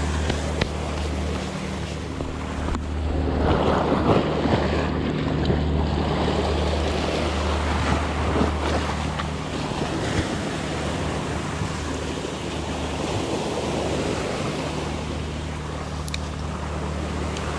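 Small sea waves washing and breaking against a rocky shore, a steady rushing wash that swells a little a few seconds in, with wind buffeting the microphone.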